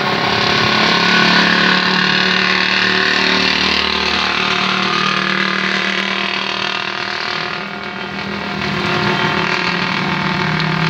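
Heavy rain pouring down in a storm, a dense steady rush of noise with a constant mechanical hum running underneath. It eases briefly about eight seconds in.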